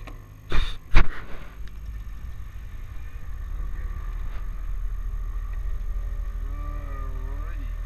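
Two sharp knocks about half a second and one second in, from the camera being handled. Then a small aircraft's engine is heard from inside the cabin as a steady low drone that grows louder over the next few seconds.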